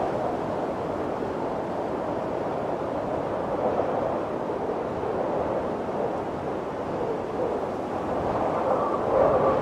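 Snowstorm wind blowing, a steady rushing noise that ebbs and swells, picking up in a stronger gust near the end.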